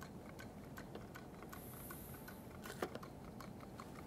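Small flywheel Stirling engine running with a rapid, faint ticking. A little under three seconds in there is a single knock as the engine's base plate is set down on a beaker of ice water.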